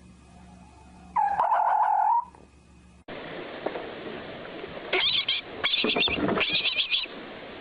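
A loud, pitched animal call lasting about a second. After a cut, bursts of rapid, high chirping calls repeat several times over steady background noise.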